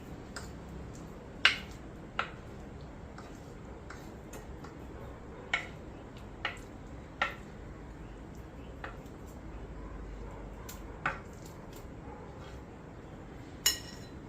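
A kitchen utensil knocking and clinking against a mixing bowl, about seven sharp clinks at irregular intervals.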